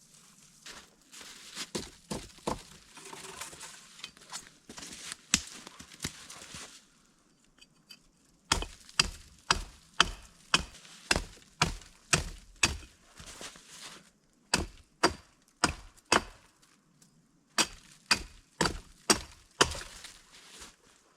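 Wood being chopped: sharp, even strikes about two a second, in three runs with short pauses between them. Before the chopping there is a stretch of rustling and scattered cracking of wood.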